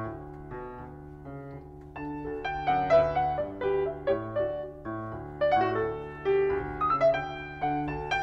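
Background piano music: struck notes in a slow melody over low bass notes, growing louder about two seconds in.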